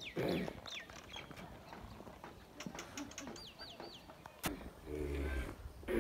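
Village birds: chickens clucking in short low bursts and small birds chirping, including a run of four quick repeated notes, with a single sharp click about four and a half seconds in.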